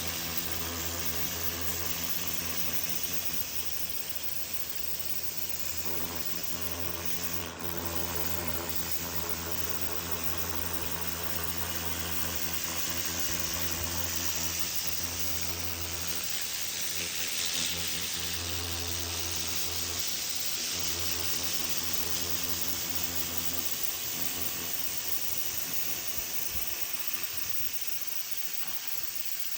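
Pressure washer running: a steady motor hum under the hiss of the high-pressure water jet spraying onto a wood fence. The hum fades out a few seconds before the end while the spray hiss continues.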